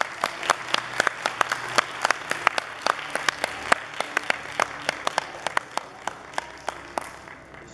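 Audience applauding, the separate claps distinct, thinning out and dying away near the end.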